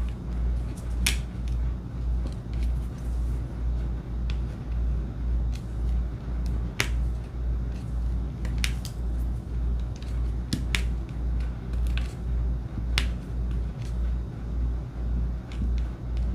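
Diamond painting pen tapping rhinestones onto the canvas: a dozen or so sharp clicks at irregular intervals, over a low hum that pulses about twice a second.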